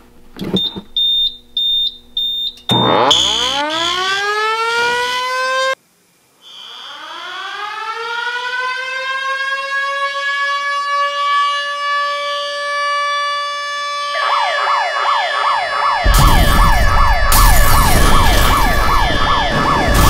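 A few short high-pitched electronic beeps, then a siren winding up in pitch until it cuts off. A second outdoor warning siren then winds up slowly to a steady wail. Near the end a fast whooping siren repeats about three times a second over a loud rushing noise.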